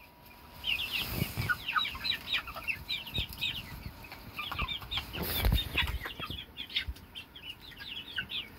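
A flock of young chicks peeping, many short high chirps overlapping in a rapid, continuous chatter. Low thumps come about a second in and again around five seconds in.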